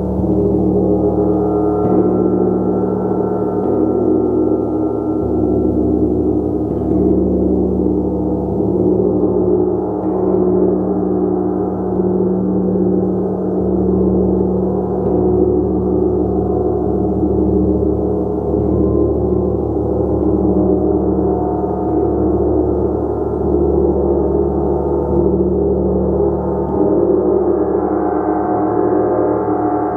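A gong played continuously with soft, repeated strokes every couple of seconds, its tones and overtones held in a steady, dense wash of sound.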